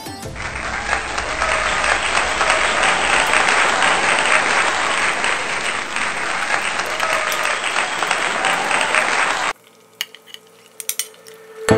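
Tofu cubes frying in hot oil in a pan: a dense, steady sizzle with crackling that cuts off suddenly near the end, followed by a few faint clicks.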